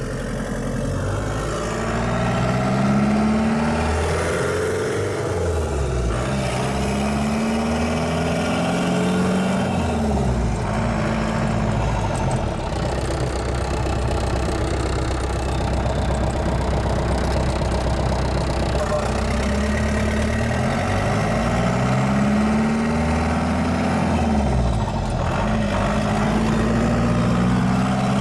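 4BT Cummins four-cylinder turbo diesel in a Ford F-350 pickup, heard from inside the cab while driving. The engine note climbs in pitch under acceleration and drops back, several times over.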